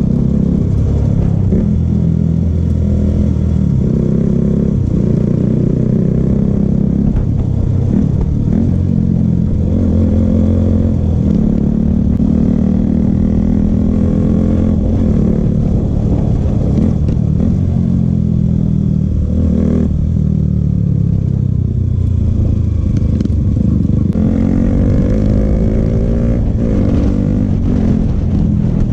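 Motorcycle engine running under way, its pitch rising and falling as it is throttled and shifted through the gears. The revs drop about twenty seconds in and climb again a few seconds later.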